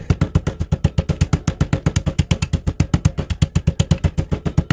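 Wooden rolling pin pounding plastic-wrapped chicken breasts on a wooden cutting board, in rapid, even blows several times a second, flattening the meat thin.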